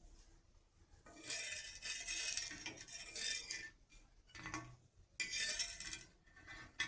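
Steel spatula scraping across a tava as it slides under the dal vadas to lift them: two long scrapes, the first about a second in and the second about five seconds in, with short knocks of metal on the pan between and after them.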